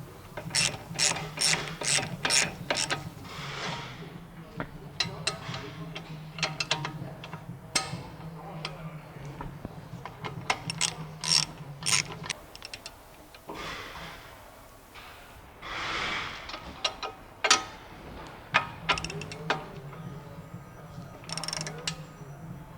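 Hand ratchet wrench clicking in quick runs as the lower ball joint fasteners on the front suspension are done up, with a short scraping noise about sixteen seconds in, over a low steady hum.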